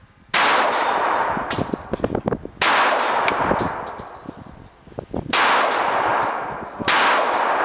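Four shots from a Springfield XD .45 ACP pistol fired slowly at uneven intervals, each one echoing and fading over about two seconds under the roof of a covered range. Light clinks and clicks sound between the shots.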